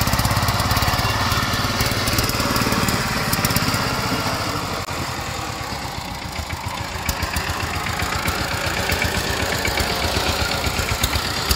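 Single-cylinder engine of a two-wheel power tiller running under load as it hauls an overloaded straw trolley, its exhaust a rapid, steady beat of pulses. It eases a little around the middle, then the beat comes through more distinctly again.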